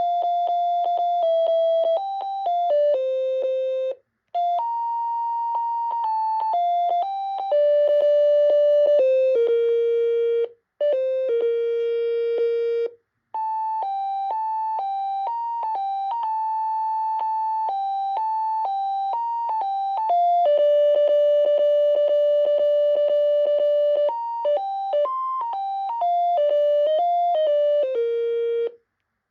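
Panasonic KX-TCD440 cordless phone handset playing its built-in electronic ringtones: simple beeping single-line melodies, several short tunes one after another with brief pauses between them.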